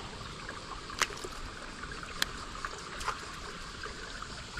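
Steady trickle of flowing water in a channel, with a few sharp clicks about one, two and three seconds in.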